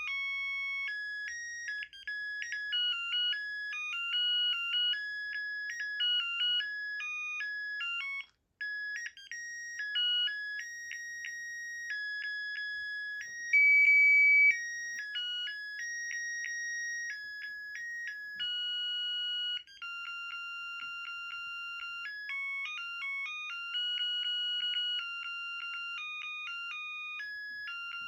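Panasonic KX-TGB210 cordless phone playing its built-in electronic ringtone melodies, quick high beeping notes. The tune breaks off briefly about eight seconds in and changes again near twenty seconds, so several different ringtones play in turn, with one loud held high note around fourteen seconds in.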